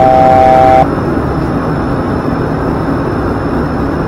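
ATR 42-500 cockpit: an electronic alert tone of three notes sounded together, held steady, cuts off sharply just under a second in. Steady turboprop engine and airflow noise runs underneath.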